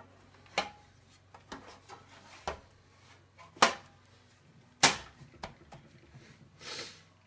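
Hard knocks and clunks of a Smart M850W power supply's metal housing against a steel PC case as it is set into the power-supply bay: half a dozen sharp knocks, the loudest about three and a half and five seconds in, then a brief rustle near the end.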